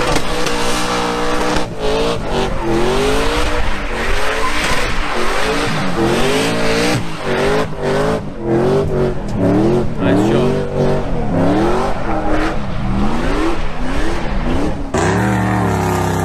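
4x4 SUV doing donuts on dirt: its engine is revved up and down over and over, about once a second, while the tyres spin and skid on the loose ground. Near the end it cuts suddenly to a different, steady engine drone.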